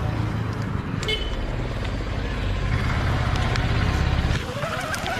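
Small two-stroke chainsaw engine idling with a low, even pulse, then revved near the end with a rising whine.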